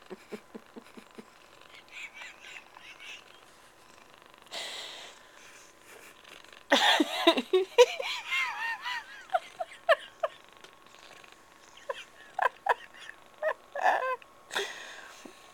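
A person laughing hard in fits of cackling giggles, loudest just under halfway through and again near the end, with breathy gasps between. A cat purrs softly underneath.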